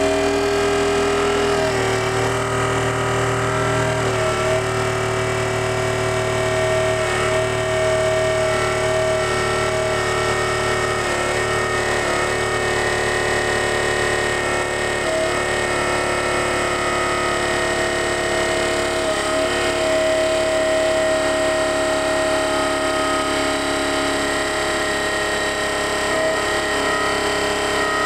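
Hitachi PA2000VH Airpunch inverter air compressor running: a steady motor-and-pump hum with several held whining tones. The pitch shifts slightly about two and four seconds in.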